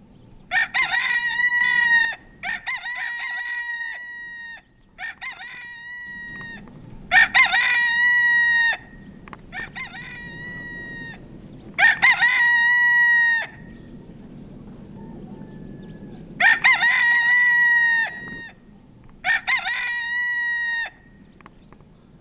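Pavlovskaya rooster crowing, seven long cock-a-doodle-doos in about twenty seconds, some louder and some fainter.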